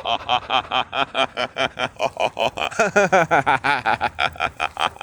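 A person doing deliberate belly laughter for laughter yoga: a long run of rapid 'ha-ha-ha' pulses, about six a second, loudest a little past the middle.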